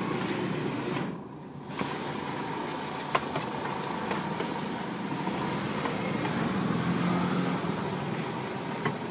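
Metal spatula and utensils clicking and scraping against a wide frying pan as noodles are stir-fried, a few sharp clicks standing out, the loudest about three seconds in. A steady rushing background, like street traffic, runs underneath and dips briefly about a second in.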